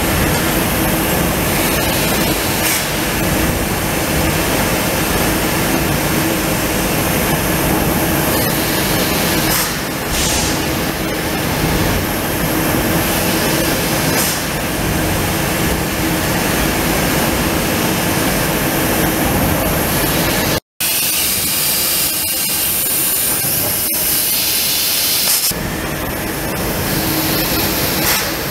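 Trumpf L2530 4 kW CO2 laser cutter cutting thick mild steel plate: a loud, steady hiss of gas and sparks at the cutting head over a steady machine hum. About two-thirds of the way through, the sound cuts out for an instant and comes back thinner and hissier.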